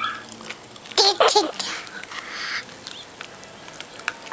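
A toddler vocalizing: a short, high, wavering squeal about a second in, then a brief breathy hiss, with scattered small clicks.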